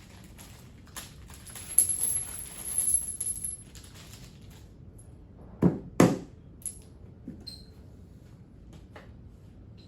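Parts of a plastic tool cart being handled and fitted together: clicks and rattling, then two loud knocks close together about halfway through, followed by a few light taps.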